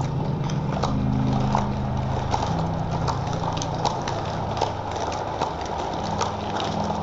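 Low sustained droning tones that step to new pitches a few times, with irregular sharp clicks or taps over them, two or three a second.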